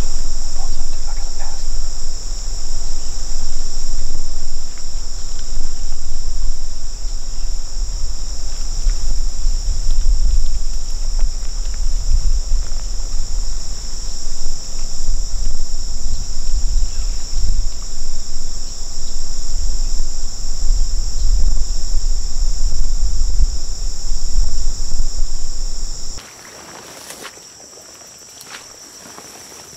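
Steady chorus of insects, a constant high-pitched trill, over a heavy low rumble that rises and falls. About four seconds before the end the rumble cuts off and the level drops sharply; the insects go on, with the rustle of footsteps wading through tall marsh grass.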